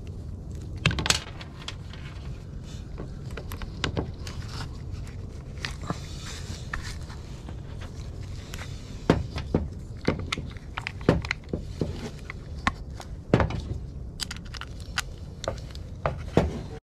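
Small chainsaw chain-brake parts being handled and fitted, making irregular sharp clicks and knocks over a low steady hum.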